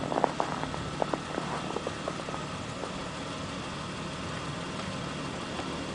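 A Jeep's engine idling steadily, with a few short crunching clicks in the first two seconds.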